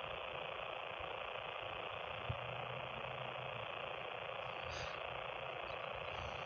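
Steady engine idling noise heard from inside a car's cabin, an even rushing sound with a faint low hum that comes and goes.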